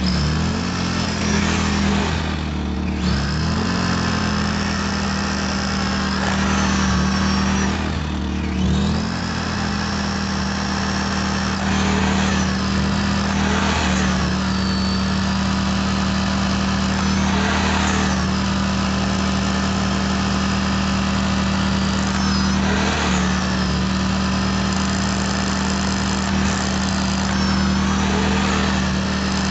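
Bosch SDS-Plus rotary hammer drilling test holes into a concrete footer, the bit hammering and chattering on buried rebar. Underneath it, the Predator 2000 inverter generator powering the drill runs with a steady engine hum.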